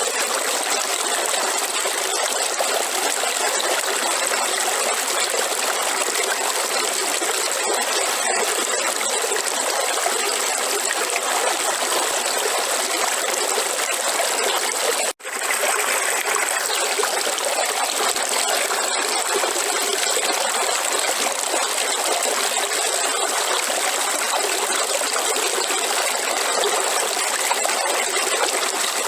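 A river running steadily, an even rushing and trickling of flowing water, with a brief, sudden drop-out about halfway through.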